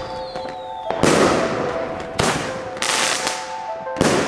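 Firework tubes firing in quick succession: about five sharp bangs, roughly one a second, each trailing off in a short crackling hiss.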